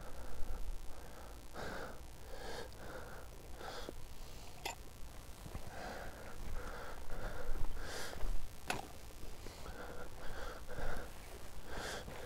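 A person moving about close to a clip-on microphone: breathing and rustling come and go, with two sharp clicks, about 5 and 9 seconds in.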